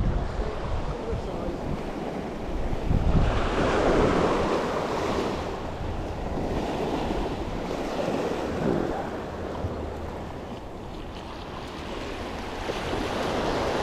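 Waves washing on the shore, swelling and easing, with wind buffeting the microphone.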